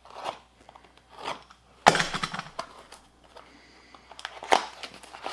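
Plastic and cardboard packaging of an LED headlight bulb being opened by hand, crinkling and tearing in several short bursts, the loudest about two seconds in.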